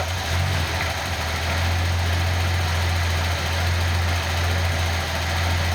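Nissan L28ET turbocharged 2.8-litre straight-six idling with a steady, even low hum. The misfire is cured by a new intake manifold gasket that closed a lean-running vacuum leak.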